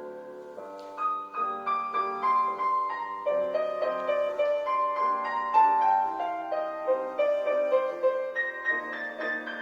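Solo piano music playing a gentle classical-style melody, sustained chords first and then a flowing run of notes from about a second in.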